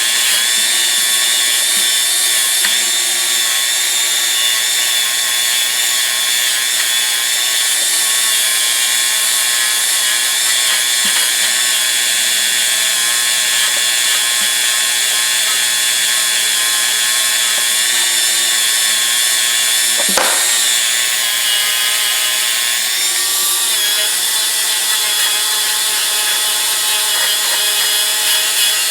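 Bench grinder motor running steadily, its abrasive wheel working steel pliers with a constant high hiss. There is one sharp knock about twenty seconds in.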